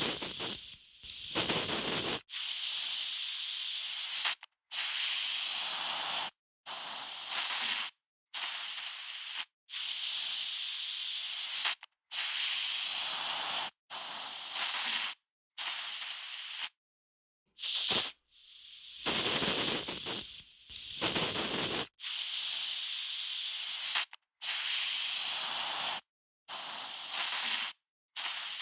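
Aerosol spray can sprayed in repeated bursts of about one to two seconds each, with a hiss strongest in the high range and short silent pauses between sprays.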